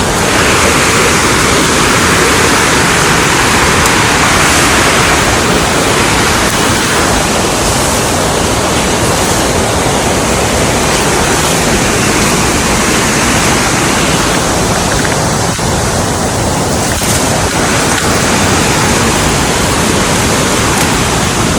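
Small waterfall pouring, a steady loud rush of falling water close to the microphone.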